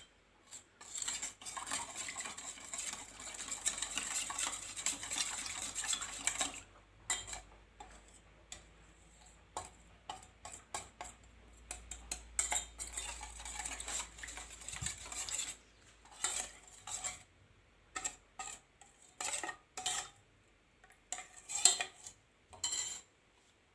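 A metal spoon stirring and scraping in a pan, melting Vaseline into warm olive oil: continuous scraping for the first several seconds, then separate clinks and scrapes against the pan.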